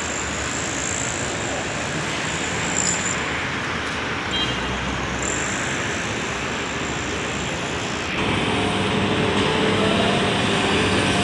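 Steady street traffic noise. About eight seconds in it changes to a truck engine running steadily with a low hum: the engine of a truck-mounted crane.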